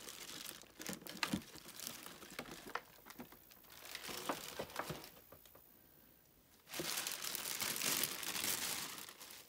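Thin clear plastic wrapping film crinkling and rustling as it is handled and pulled away, in bouts with a short lull past the middle and the loudest stretch near the end.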